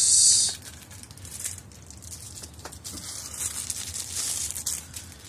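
Plastic packaging being handled as a folding knife in a plastic sleeve comes out of its box: a loud, short rustle at the start, then quieter crinkling.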